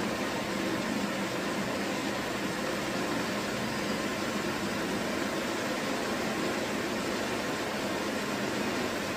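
Steady background hiss and hum, even throughout, with no distinct knocks or clicks.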